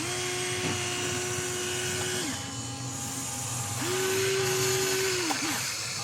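Small electric motor of an RC construction model whining as it runs, cutting out after about two seconds and starting up again for about a second and a half, over a steady hum.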